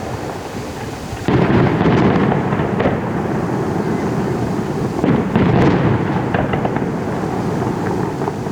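Fireworks: a few scattered bangs, then about a second in a dense barrage of shells bursting almost on top of one another into a continuous rumble, swelling again partway through.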